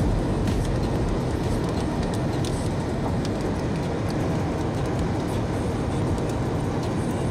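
Steady rushing wind noise on the microphone, heaviest at the low end, with a few faint ticks.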